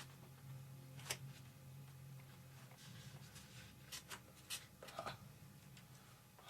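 Faint scrapes and taps of a stir stick spreading epoxy in a foam wing, a few short strokes scattered over a steady low hum.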